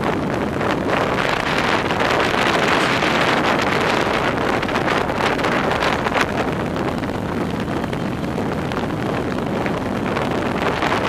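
Wind rushing over the microphone of a camera riding at speed around a velodrome on a track bike, a steady loud rush.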